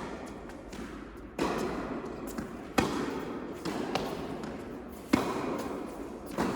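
Tennis ball being hit back and forth in a rally on an indoor court: a sharp pop from racquet or bounce about every second and a quarter, five in all, each ringing on in the hall's echo.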